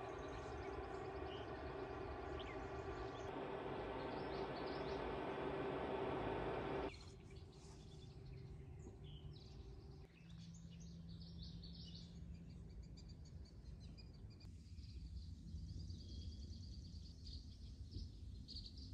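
Zero Breeze Mark 2 portable air conditioner running with a steady hum, which cuts off suddenly about seven seconds in. After that comes quieter evening woods with scattered high bird chirps.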